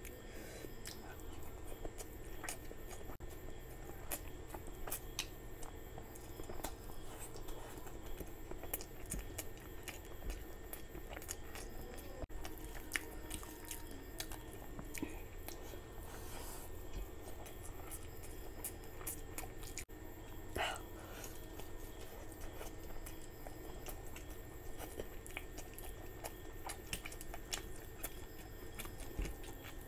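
Close-miked chewing of curry and rice, with many short wet mouth clicks and smacks, alongside fingers squishing and mixing rice on a plate.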